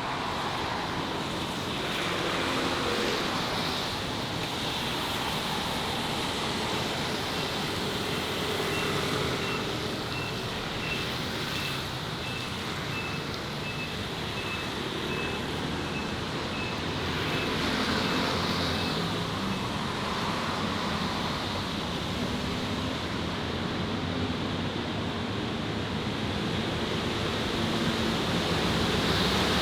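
City street traffic noise, a steady wash of passing vehicles. A faint high beep repeats about twice a second through the middle.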